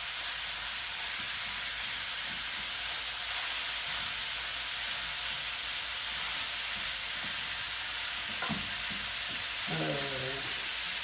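Raw ground beef frying in a hot, lightly oiled frying pan, a steady sizzling hiss, while a wooden spoon stirs and breaks it up with a few soft scrapes and taps.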